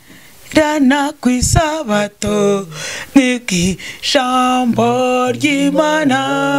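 A woman singing unaccompanied in a chant-like way, starting after a brief pause and holding long, level notes in the second half.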